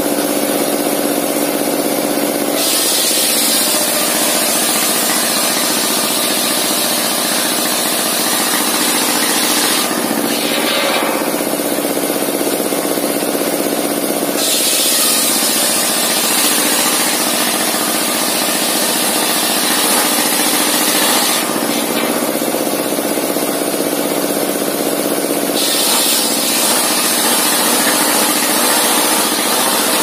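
Sawmill circular saw bench ripping timber lengthwise. The blade hums steadily throughout. A loud, high hiss of cutting comes in about two and a half seconds in, stops around ten seconds, returns at about fourteen seconds until about twenty-one, and comes in again at about twenty-six seconds. Between cuts the blade spins free.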